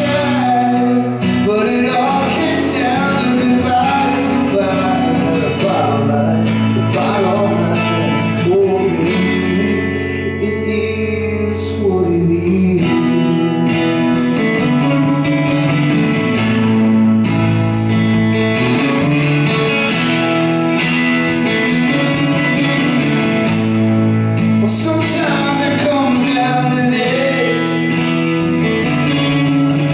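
Live song played on electric guitar and acoustic guitar, with a man singing.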